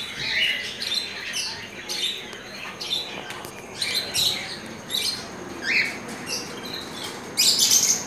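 Caged budgerigars and other small parrots chirping, many short calls overlapping, with a loud cluster of calls near the end.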